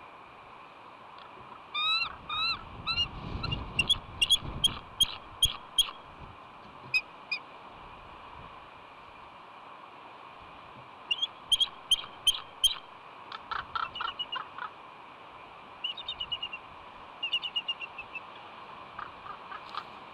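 Bald eagle giving bouts of high, piping chitter calls, several quick notes per bout, with short pauses between bouts: the nesting female's calls for help while ravens try to steal her egg.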